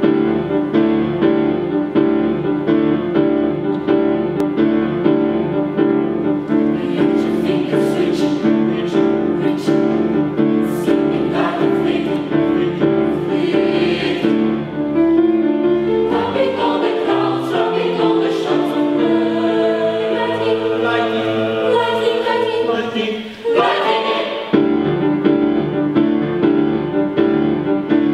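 Mixed youth choir singing in sustained chords. About sixteen seconds in the voices move to a higher, more moving line, break off briefly near twenty-four seconds, and then return to full held chords.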